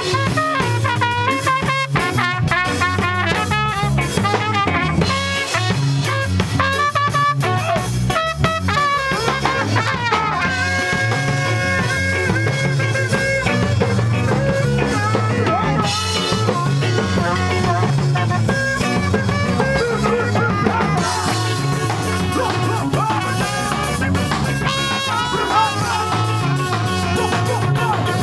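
A ska band playing live, with drum kit, guitar and saxophone.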